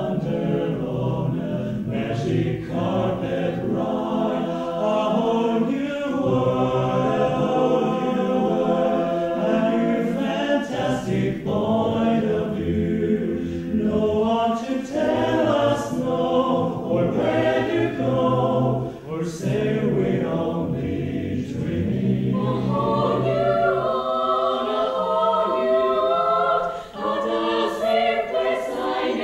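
Mixed men's and women's barbershop chorus singing a cappella in close harmony, sustained chords with no instruments.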